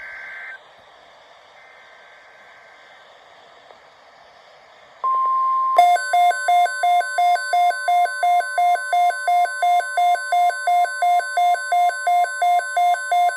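Emergency alert broadcast tones for a tornado watch. After a few seconds of faint radio hiss, a steady alert tone comes on about five seconds in. Under a second later, a rapidly pulsing electronic beep joins it at about three beeps a second and continues over the steady tone.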